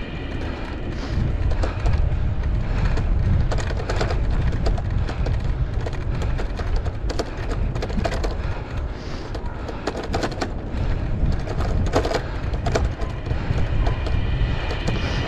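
Wind rumbling across a helmet-mounted camera's microphone while riding a bicycle, with the bike rattling and clicking over the bumps of the trail.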